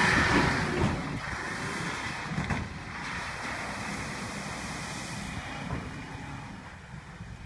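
Wind buffeting the microphone over the sound of a Mitsubishi Triton ute driving on beach sand, loudest at the start and easing off.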